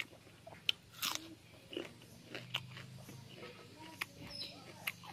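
A person chewing a mouthful of raw onion and rice close to the microphone, with crisp crunches and mouth smacks at irregular moments.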